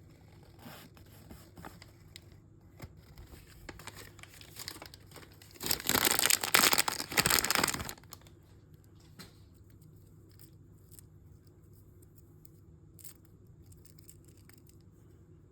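Plastic mystery-bag packaging crinkling as it is handled, then torn open in about two seconds of loud tearing in two pulls, roughly halfway through. A few faint crinkles and clicks follow.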